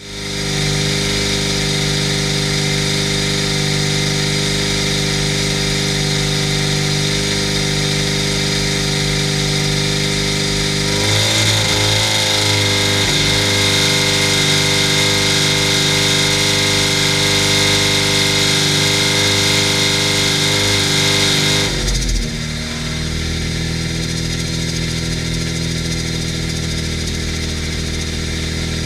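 Supercharged 999cc five-port A-series inline-four engine running on an engine dyno. About 11 seconds in the note changes and grows louder, with a strong high whine over it. About 22 seconds in it drops back to a lower, quieter steady running note.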